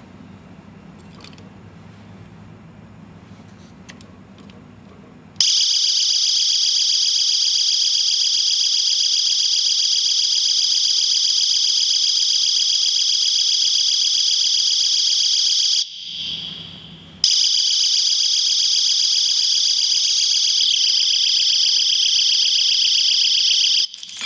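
Motorcycle alarm U-lock's built-in siren going off: a loud, steady, piercing high-pitched electronic alarm that starts suddenly about five seconds in, stops for about a second in the middle, then sounds again for about seven seconds before cutting off. Before it starts there are only a few faint clicks.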